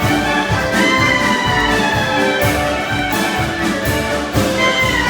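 Live band playing klezmer music: held melody notes with pitch slides over a steady bass beat.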